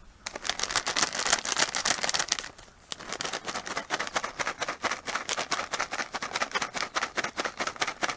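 A package of cat treats being shaken to call a cat back: a quick, even rattle of many clicks a second, with a short pause about two and a half seconds in.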